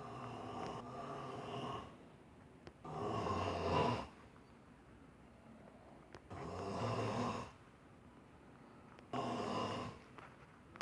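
A sleeping man snoring: four snores, each a second or two long, with short quiet gaps between them.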